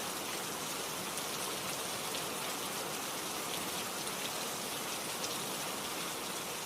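Heavy rain falling steadily, a dense even hiss with the odd sharper drop landing close by.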